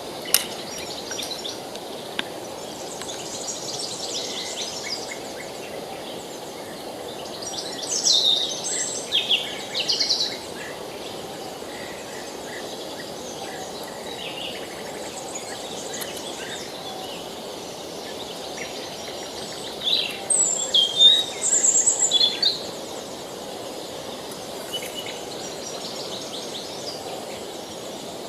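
Birds singing and chirping in a forest over the steady rush of a river, with louder bursts of song about eight seconds in and again around twenty seconds in.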